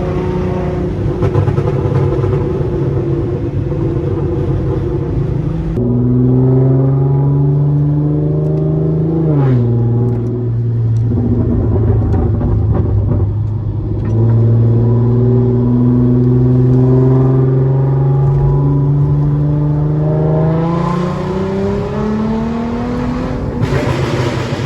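2016 Hyundai Genesis Coupe's 3.8-litre V6 running under way. The engine note holds mostly steady, drops sharply once about nine seconds in, and climbs steadily in pitch over the last few seconds.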